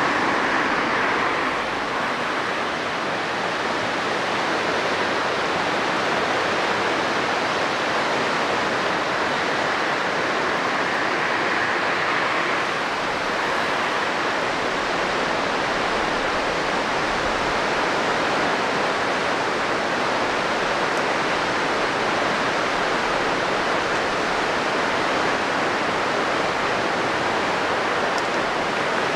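A steady, even rushing noise that continues unchanged.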